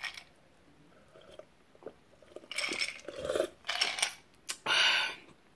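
Drinking from a glass with ice: small sipping and swallowing sounds, then ice cubes clinking and rattling against the glass in several short bursts over the second half.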